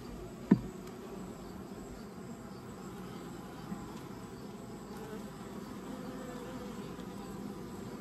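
Honeybees buzzing steadily around an open Layens horizontal hive. About half a second in there is one sharp knock as a wooden frame is set back into the hive.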